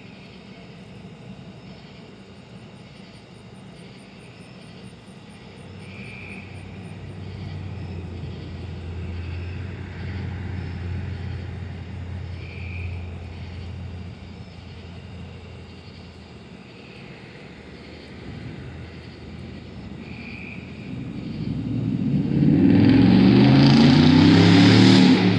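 A low-flying aircraft passes overhead, growing loud over the last few seconds, its engine drone sweeping in pitch as it goes by. A faint high chirp repeats every few seconds behind it.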